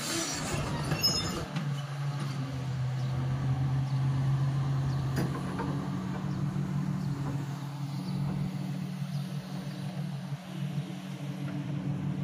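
Komatsu hydraulic excavator's diesel engine running steadily under hydraulic load, its engine speed stepping up about five seconds in, with a single short knock at about the same moment.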